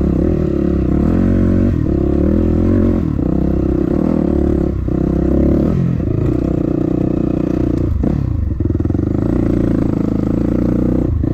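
Dirt bike engine running hard up a trail, its note dipping and climbing back several times as the throttle is eased and reapplied.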